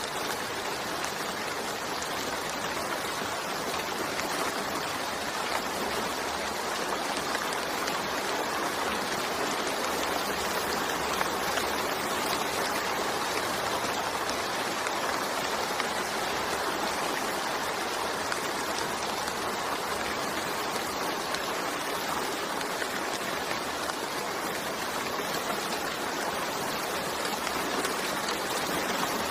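Steady rain falling: an even, unbroken hiss with no single drops or other sounds standing out.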